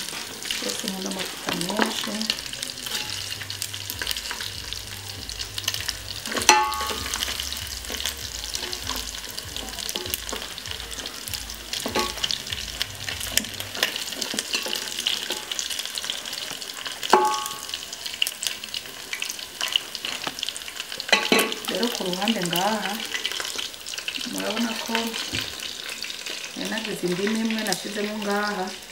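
Beef pieces sizzling as they fry in a metal pot while a wooden spatula stirs them. Two sharp knocks of the spatula against the pot ring briefly, about a quarter of the way in and again a little past halfway.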